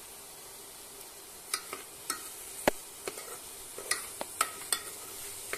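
Chopped vegetables frying in oil in a pressure cooker, a steady sizzle, while a stainless steel spoon stirs them, clinking and scraping against the pot's side. There are about ten sharp clicks, irregular, from about a second and a half in.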